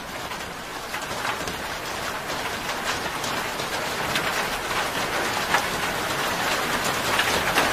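Heavy monsoon rain falling steadily, with many individual drops splashing close by.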